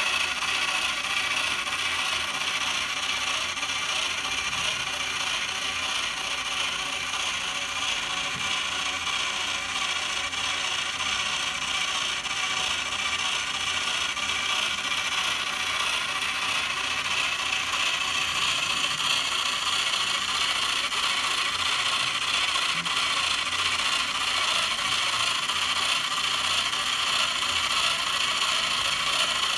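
3D-printed pusher centrifuge model running, its plastic drive and spinning perforated basket making a steady, rapid mechanical clicking and whirring.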